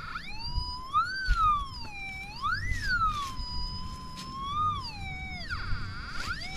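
Metal detector's electronic tone warbling, its pitch gliding up and down as the coil is swept over buried metal, climbing to its highest about two and a half seconds in, holding steady, then dropping away and coming back near the end. It is being used to trace the outline of a buried oil tank.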